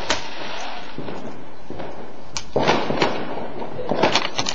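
Small firework going off: sharp pops and crackles over a steady hiss, one at the start, a cluster about two and a half seconds in and another near the end.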